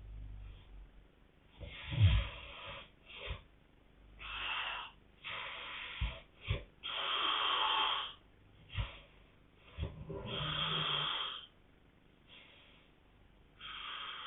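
A couple snoring: irregular snores of different lengths with quiet breaths between, and several short low thumps among them, the loudest about two seconds in.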